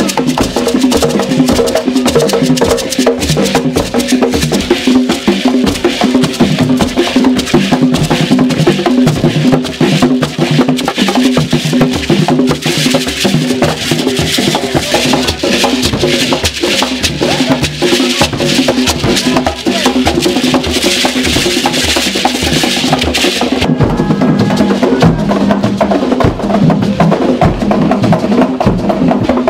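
Ganda drums and gourd shaker rattles played together in a fast, steady rhythm, the shakers making a dense, bright rattle. About 24 seconds in, the bright rattling drops away and the lower drum-and-tone part carries on.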